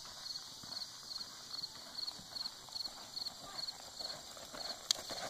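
Hoofbeats of a horse loping on soft arena dirt, a rhythmic muffled drumming. A steady high chirp repeats evenly behind it, and a sharp click comes near the end.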